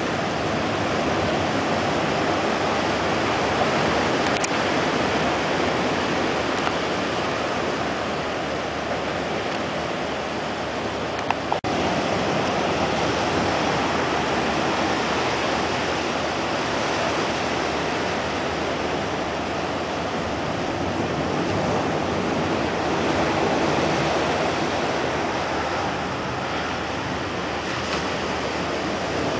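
Low ocean surf breaking and washing onto the beach: a steady rushing wash that swells and eases slowly. A brief click about a third of the way in.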